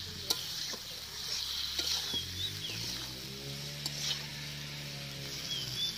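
Fish pieces sizzling steadily in hot oil in a large metal kadai, while a metal spatula stirs them and clicks and scrapes against the pan several times.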